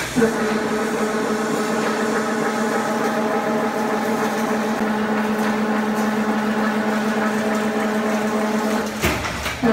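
Automatic chain link fence weaving machine running: a steady mechanical hum with a constant droning tone. A brief noisy disturbance interrupts it about nine seconds in.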